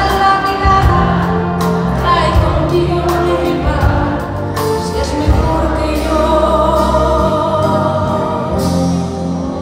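Live pop ballad: a woman singing lead into a microphone, backed by a band, with long held sung notes in the second half.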